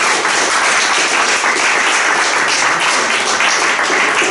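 Audience applauding: many hands clapping at once, steady and dense.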